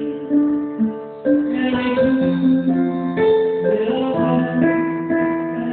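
Live band music, with keyboard and guitar playing held chords that change every second or so.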